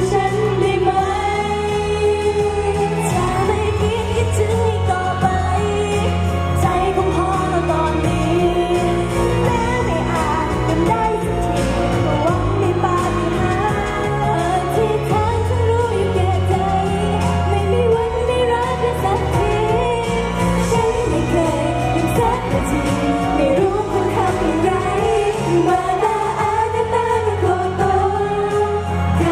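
A group of young women singing a pop song live into handheld microphones over a backing track with a steady bass beat, amplified through a stage PA system.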